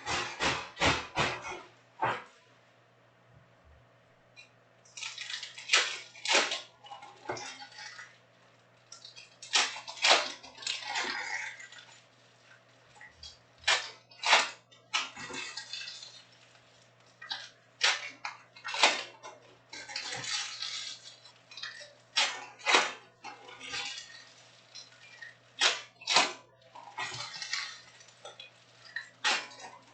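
Chrome trading cards and their foil packs being handled: crinkling rustles and sharp clicks in short bursts every few seconds, as packs are opened and cards are flipped through.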